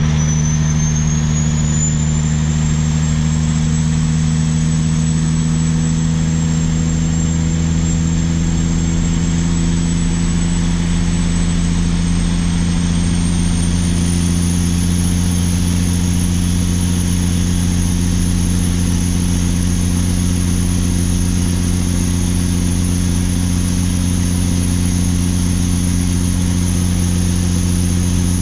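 Caterpillar 3406E inline-six diesel pulling under heavy load, a steady low engine drone with a high turbocharger whistle on top. The whistle climbs in pitch over the first two seconds, rises again about halfway through, then holds.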